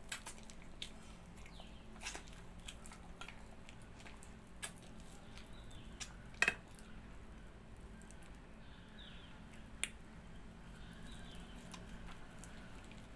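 Wet sucking, chewing and lip-smacking of ripe palmyra (tala) palm fruit pulp being pulled off its fibres by mouth, with scattered sharp mouth clicks, the loudest about six and a half seconds in.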